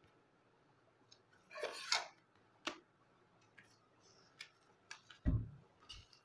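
Hands handling phone packaging, plastic and cardboard: a short rustle, a few light clicks and taps, and a dull thump about five seconds in.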